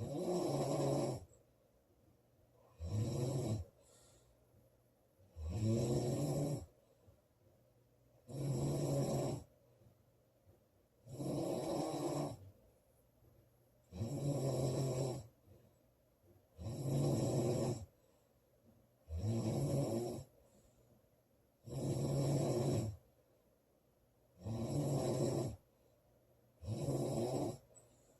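A woman snoring loudly and regularly: about eleven snores, one every two and a half to three seconds, each a rattling buzz lasting about a second, with quiet gaps between.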